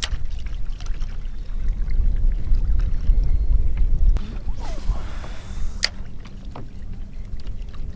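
Wind rumbling on the microphone over open water, with a spinning rod being cast: a brief swish about four and a half seconds in, then a sharp click about a second later.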